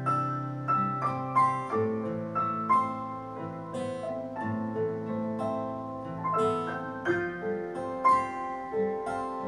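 Piano music played back through a pair of Mordaunt-Short MS902i bookshelf loudspeakers, a steady run of melodic notes over sustained lower tones.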